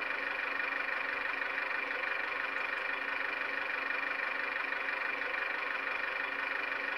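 Recorded diesel engine idling steadily, as played by the sound decoder through the small speaker of a Heljan 7mm AEC railcar model.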